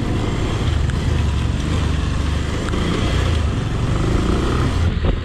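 A vehicle driving along with a steady, loud low rumble. The sound changes abruptly near the end.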